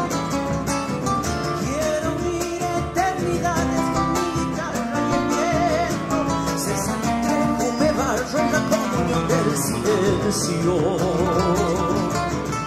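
Live folk music: acoustic guitars strumming and picking, with a wavering melody line carried over them from about four seconds in.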